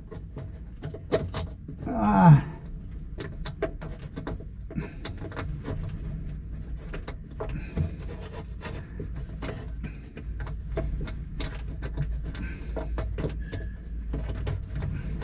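Small, scattered clicks and taps of hands and metal parts as a nut is worked onto the fuel shutoff valve fitting in a cramped space, over a steady background hum. A short grunt comes about two seconds in.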